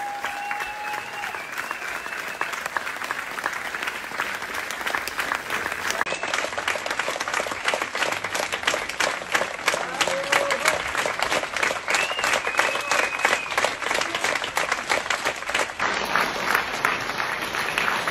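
Theatre audience applauding with dense, fast clapping and a few voices calling out above it. The sound cuts abruptly about six seconds in and again near the end, and the clapping becomes sharper and louder after the first cut.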